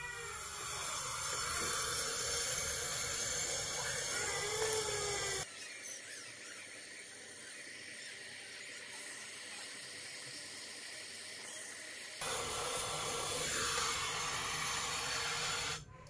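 Brazing torch flame hissing steadily as it heats a copper pipe joint on a refrigerator evaporator. The hiss drops abruptly about five seconds in and rises again about twelve seconds in.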